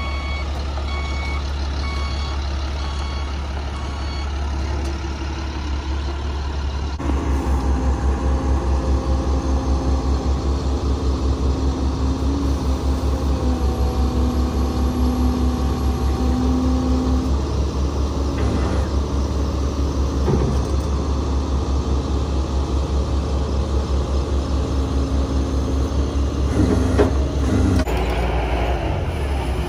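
A rollback tow truck's engine idles while a backup alarm beeps for the first few seconds. From about seven seconds in, the engine runs harder and the Jerr-Dan hydraulic bed tilts and slides back to unload a car, with a steady hydraulic whine and a brief clank near the end.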